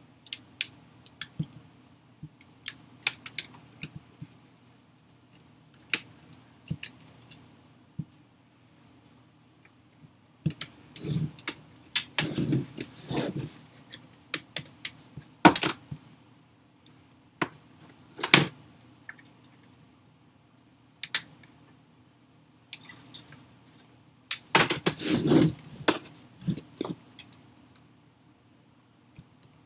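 Irregular plastic clicks and snaps, with a couple of louder clusters, as the clipped-on plastic bezel around an Asus VivoBook S530F laptop's screen is pried off its clips.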